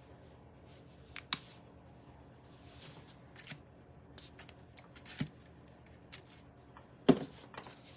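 Quiet handling sounds of painting with acrylics: scattered light clicks and taps of brush and paint bottle, with a soft brushing rustle, the loudest a sharp click about seven seconds in.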